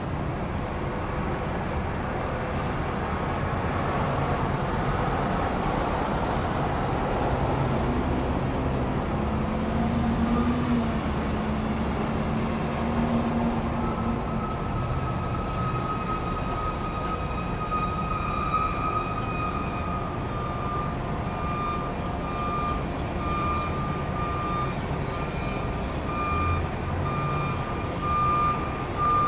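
Truck engine running with a steady low rumble; about halfway through a reversing alarm starts up, a single high tone that settles into regular, evenly spaced beeps.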